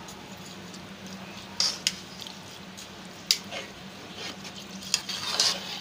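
A slotted spoon stirring soaked rice and lentils in a watery pot, with wet sloshing and a few short scrapes and knocks against the pan. A faint steady hum runs underneath.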